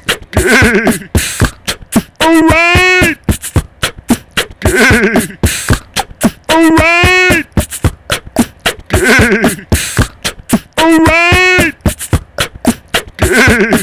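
Looped beatbox groove played back through a Korg Kaossilator 2 looper: dense mouth-percussion kicks, snares and clicks under a short pitched phrase that rises and falls. The whole pattern repeats about every two seconds.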